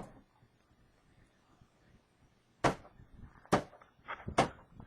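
Ice being chipped off a door with sharp whacks: one at the start, then three in a row, a little under a second apart, from nearly three seconds in.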